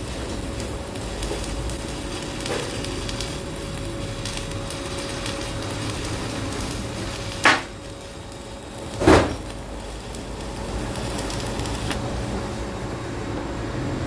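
Stick-welding arc with a stainless-steel electrode, crackling steadily during a weld build-up on a transmission bearing seat. Two sharp metallic knocks come about seven and a half and nine seconds in, and the arc is quieter between them.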